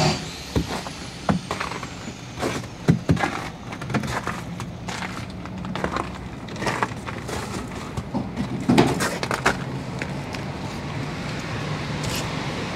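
Irregular footsteps and knocks on a wooden dock float, over a low steady hum.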